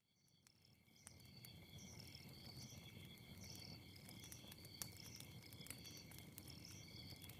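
Faint night-woods ambience fading in over the first second: insects chirping in steady, repeating high trills, with scattered sharp crackles of a campfire and a low, even rumble beneath.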